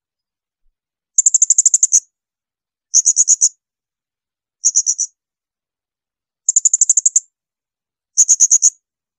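Blue-crowned hanging parrot (serindit) giving shrill, high-pitched 'tembakan' calls: five short bursts of rapid repeated notes, about ten a second, separated by brief silences.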